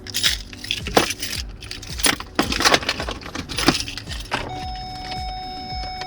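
Car keys jangling as the ignition key of a 2017 Hyundai Elantra SE is inserted and turned, a series of sharp metallic clinks. About four and a half seconds in, a steady high electronic tone starts as the ignition comes on.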